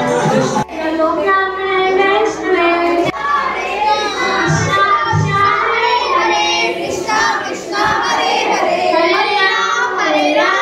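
A group of women and children singing a devotional chant together (kirtan). A short stretch of music with a low beat cuts over to the voices under a second in.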